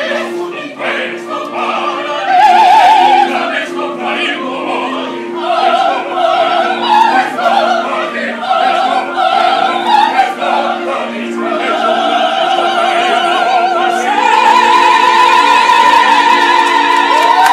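Opera singers performing live, several voices with wide vibrato over a steady held accompaniment, building in the last few seconds to one long high sustained note.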